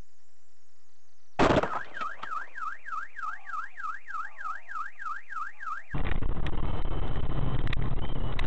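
Car collision: a sudden loud impact, followed at once by a car alarm wailing, its tone sweeping up and down about three times a second. The alarm cuts off after about four seconds and a loud steady rumbling noise takes over.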